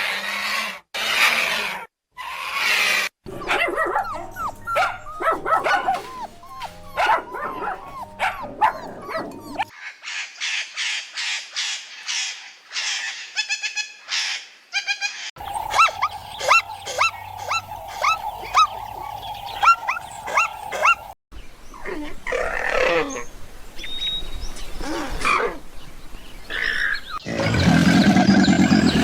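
Calls of several different animals, cut one after another: runs of short repeated calls and high chirps, ending with a louder, lower call near the end.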